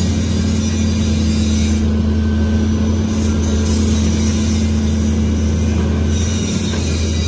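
Caterpillar 320C excavator's diesel engine running steadily as the arm and bucket dig, a constant low drone.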